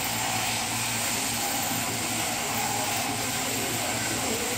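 Sheep-shearing handpiece on an overhead drive running steadily as its comb and cutter shear the fleece off a sheep, a continuous buzzing hum with a hiss.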